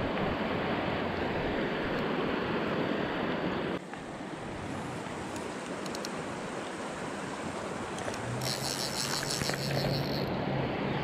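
Shallow river water rushing over a riffle, mixed with wind buffeting the microphone; the sound changes abruptly about four seconds in. Near the end a steady low hum with a high hiss joins for about two seconds.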